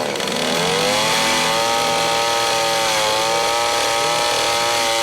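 Two-stroke chainsaw engine revving up to full throttle in the first second and held at high speed, with a slight dip in pitch midway.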